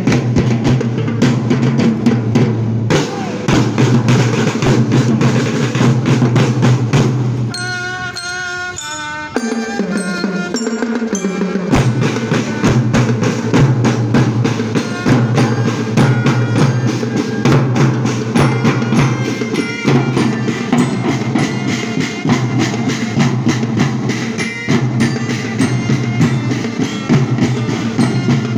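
Marching drum band playing: bass drums and marching snare drums beat a steady, dense rhythm, with bell lyra (marching glockenspiel) notes on top. About eight seconds in the drums drop out for a few seconds while a short run of pitched notes plays, then the drumming comes back in.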